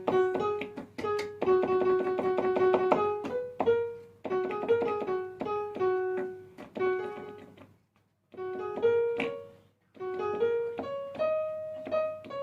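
Piano notes played on a Nektar Impact LX49 MIDI keyboard to test its keys after cleaning: single notes and a fast run of repeated notes about a second in, broken by two short pauses in the second half. The notes sound cleanly, showing the keys that were missing now respond.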